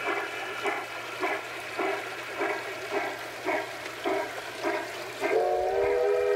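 Steam-locomotive sound from the QSI DCC sound decoder in a large-scale LGB Denver & Rio Grande Western locomotive, played at the decoder's normal volume setting. It chuffs steadily at about two beats a second, and about five seconds in a whistle blast starts.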